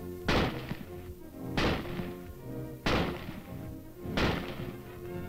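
M1 Garand .30-06 rifle fired semi-automatically: four shots about a second and a quarter apart, each a sharp crack with a short ringing tail, over orchestral background music.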